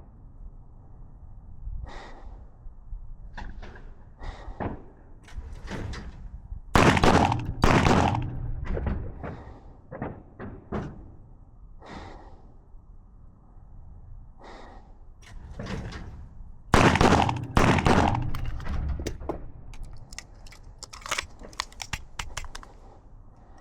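.22 pistol shots echoing in an indoor range, with two loud clusters about ten seconds apart, each falling in the three seconds the duel targets face the shooters. Quieter sharp reports and clicks come in between.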